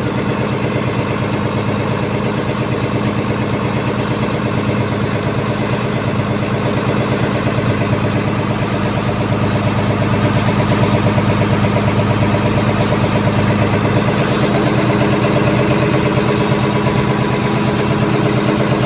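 A boat's engine running steadily under way: a loud, even drone with a fast, regular firing beat.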